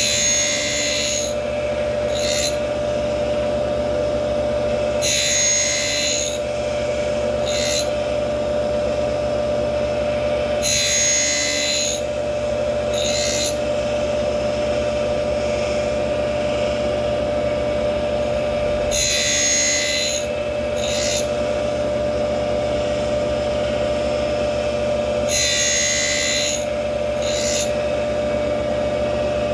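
Tool post grinder's wheel running with a steady whine while grinding the teeth of a horizontal mill cutter. Five grinding passes, each a gritty hiss of about a second and a half followed by a short second scrape, come several seconds apart as the cutter is indexed tooth by tooth.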